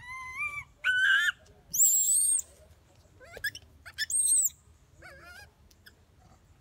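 Baby long-tailed macaque crying in a string of wavering, high-pitched wails, with two shrill screams about two and four seconds in. It is crying as it tries to nurse and its mother refuses it milk.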